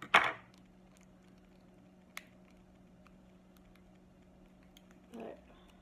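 A brief loud sound right at the start, then faint, scattered small clicks and ticks of fingers working at a hard plastic doll bow to pry it open.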